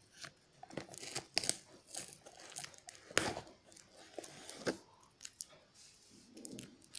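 Clear packing tape being picked at and peeled off a cardboard box by hand: irregular scratchy tearing and crinkling noises with short clicks, the loudest a little after three seconds in.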